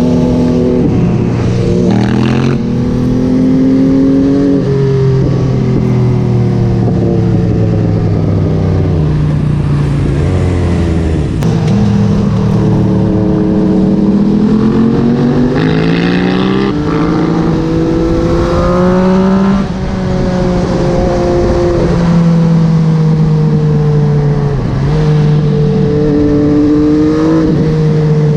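MV Agusta Dragster 800's inline three-cylinder engine through a QD Power Gun exhaust, heard while riding. It revs up and drops back repeatedly as it accelerates through the gears and rolls off the throttle.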